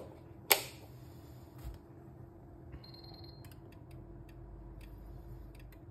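A sharp click as a test lead's plug is pushed into a wall socket, then a short high beep from a Megger MFT1721 multifunction tester as a test starts, followed by faint scattered ticks while the test runs.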